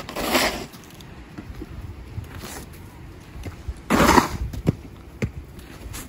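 Snow shovel scraping over the pavement under wet snow, twice: a longer scrape right at the start and a shorter one about four seconds in, with a few small knocks between.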